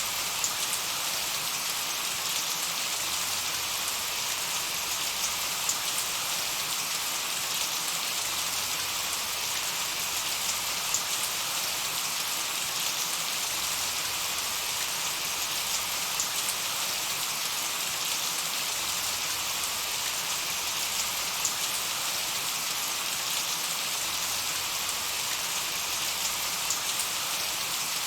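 Steady light rain falling on grass, an even hiss of drops with faint scattered pattering throughout.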